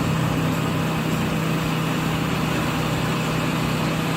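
Large wood chipper running steadily, a constant engine hum under a dense, even rush of machine noise.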